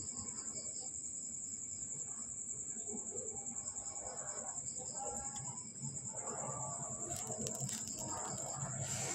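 Crickets chirping in a steady, high, pulsing trill that doesn't let up. A few soft clicks come near the end.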